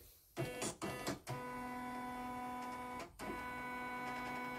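Computerized embroidery machine whirring after its panel is pressed: a few short mechanical sounds, then a steady motor whine that stops briefly about three seconds in and starts again.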